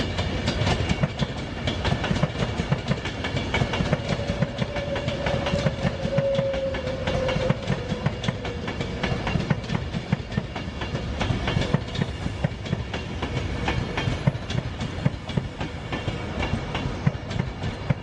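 Train wheels clattering over rail joints and points at slow speed, a steady rumble full of sharp clicks, with a faint whine that holds for a few seconds and then sinks slightly.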